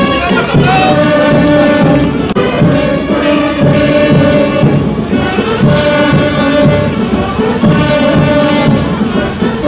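Background music led by brass instruments, playing held melody notes over a steady beat.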